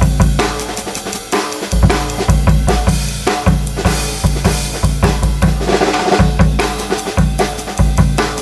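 Pearl Midtown compact drum kit played with hickory sticks: a busy groove of 16-inch bass drum kicks, snare strokes and rimshots, with a stretch of cymbal wash about halfway through. Recorded without EQ.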